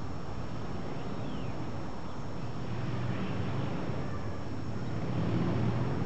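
Steady outdoor street noise: a low rumble of distant traffic that swells slightly in the last couple of seconds.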